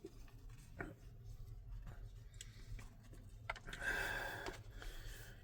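Faint rustling and a few light taps as a messy Big Mac and its wrapper are handled, with a soft scraping rustle a little past the middle, over a low steady room hum.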